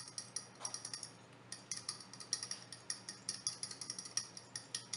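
A plastic spoon quickly beating egg yolk, soy sauce and garlic paste in a glass bowl, clicking against the glass several times a second, with a short pause about a second in.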